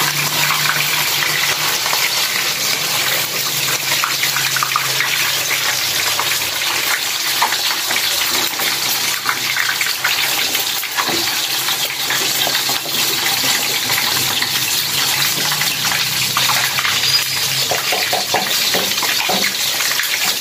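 Whole snakehead fish frying in hot oil in a wok: a steady sizzle dotted with small crackling pops of spattering oil.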